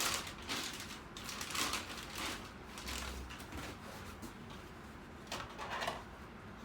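Plastic model-kit parts and their packaging being handled, giving scattered short rustles and light knocks.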